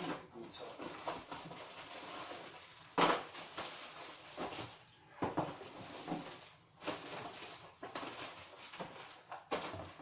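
Plastic wrapping and packing material rustling and crinkling as plastic-wrapped packages are handled and lifted out of a cardboard box, with a louder crackle about three seconds in.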